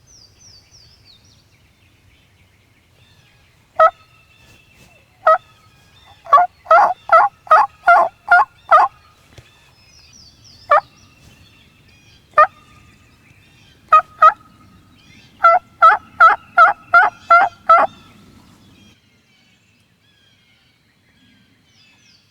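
Loud turkey yelping: a few single yelps, then two quick runs of seven or eight yelps at about three a second, as used to call in a hen or gobbler. A small bird chirps faintly between them.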